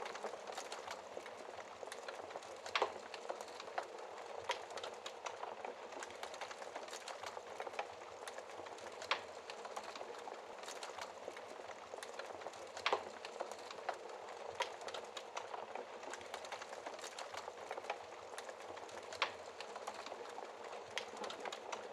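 Wood fire crackling steadily in a fireplace, with a constant fizz of small crackles and a few louder sharp pops, about four in all.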